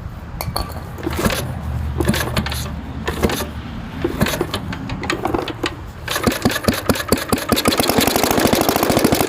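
Briggs & Stratton flathead small engine sputtering with irregular knocks and pops, then catching about six seconds in and running with a rapid, even beat. It is hard to start from a fuel problem, which the owner puts down to a clogged carburetor.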